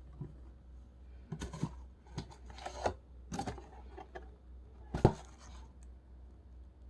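Packaging being cut and torn open by hand: a run of short scraping, crinkling strokes, then one sharp snap about five seconds in.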